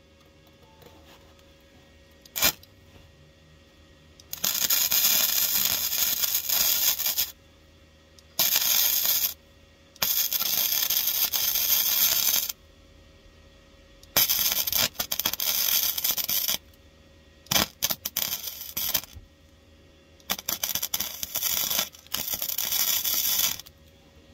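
MIG welder arcing on the rear floor pan of a Ford Cortina Mk4, in six bursts of one to three seconds each with short pauses between: stitch welds laid one after another.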